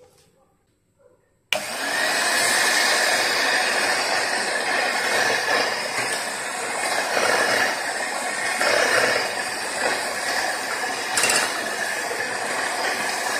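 Electric hand mixer switched on about a second and a half in, then running steadily, its twin beaters whisking eggs and sugar in a stainless steel bowl.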